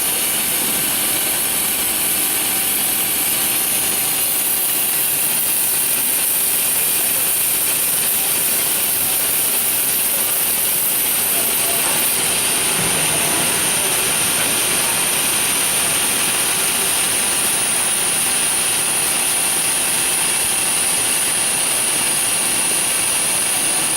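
Cincinnati EC380 grinder running steadily through a grinding cycle: a constant hiss with a high-pitched whine on top, shifting slightly about halfway through.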